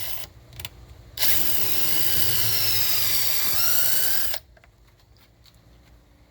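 Power drill spinning a 3/32-inch bit to pre-drill a pilot hole, running for about three seconds with its pitch wavering, after a few light clicks.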